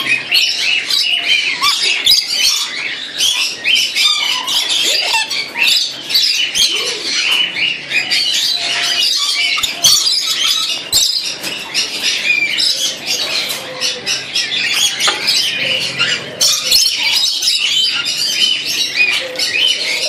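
Many caged parrots, lorikeets among them, screeching and chattering at once in a dense, overlapping chorus of shrill calls that keeps up without a break.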